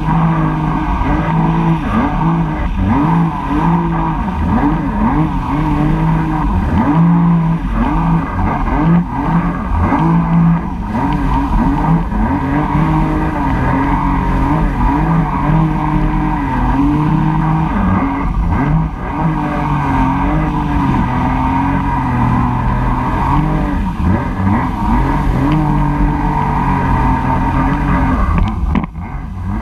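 Jet ski engine running under way, its pitch rising and falling again and again as the throttle and hull load change, over rushing wind and water. The sound briefly drops near the end.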